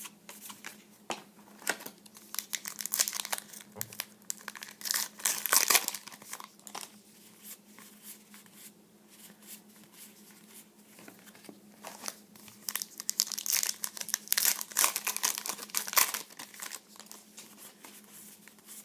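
Cellophane wrappers of trading-card packs crinkling and tearing as the packs are opened by hand, in two bouts of rustling several seconds long.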